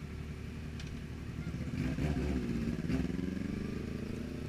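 Motorcycle engines idling; about two seconds in, one is revved and pulls away, its engine note rising as it accelerates.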